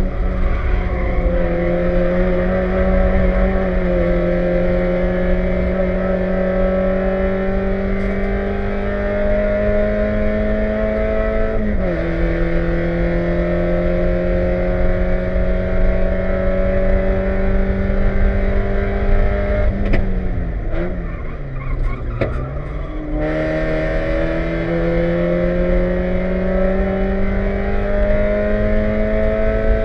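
Spec Miata's four-cylinder engine heard from inside the race car at full throttle, revs climbing steadily. There is one upshift about twelve seconds in. Revs fall away under braking and downshifts around twenty seconds, then it pulls hard again. Occasional clanks come from the front suspension, where a lower A-arm was left loose after replacement.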